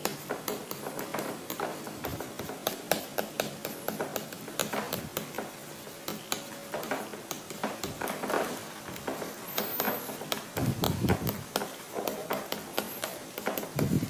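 Pen writing: a run of irregular light taps and scratches, several a second.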